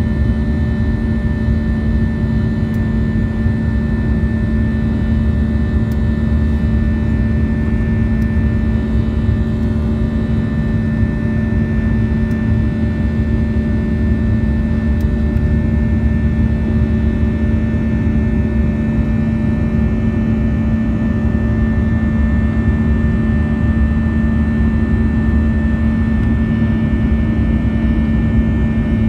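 Steady jet engine and airflow noise inside the cabin of a Boeing 737 climbing after takeoff: a constant low rumble with a steady hum and a higher whine held over it.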